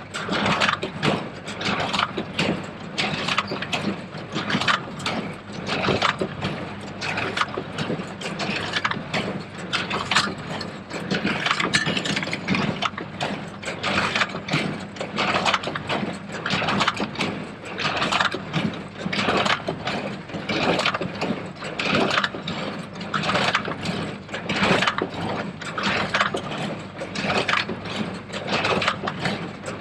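New Holland 273 square baler running, its plunger and knotter mechanism clattering in a steady rhythm, with the tractor's engine running steadily underneath.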